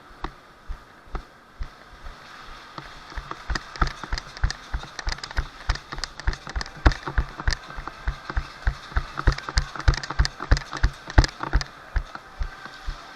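Footsteps of a player on the move, with gear knocking against the body: quick, regular thuds with sharp clicks among them, about three to four a second, sparser at first and getting busier about three seconds in.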